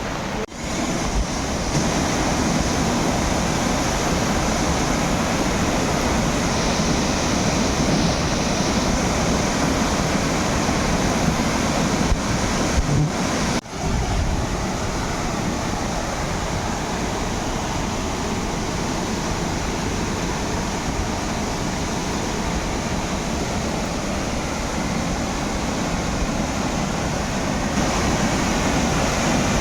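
Steady rushing roar of a waterfall's falling water, dropping out briefly twice, about half a second in and again about 14 seconds in.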